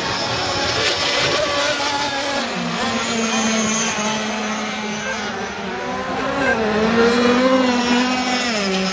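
Several 26–35cc two-stroke petrol RC racing boats running at full throttle, a loud, overlapping engine buzz. The pitch dips and recovers a few times as the boats pass and back off for the turns.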